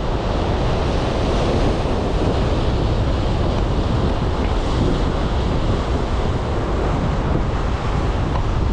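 Rough surf breaking and washing over rocks, a steady rushing with wind buffeting the microphone underneath.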